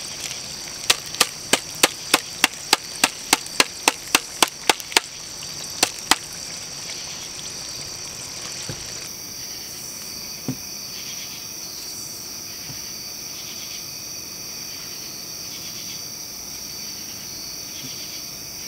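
About fifteen sharp taps, roughly three a second, from a metal box grater knocking on a metal sheet pan as cheddar is grated, stopping about six seconds in. Crickets chirp steadily throughout.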